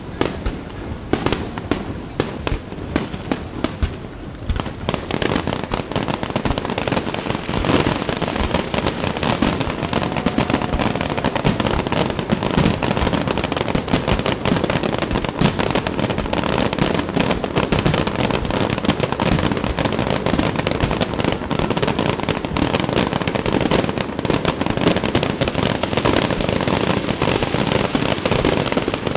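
Aerial fireworks display: dense, rapid bangs and crackling. The pops are scattered for the first few seconds, then about five seconds in they thicken into a continuous barrage.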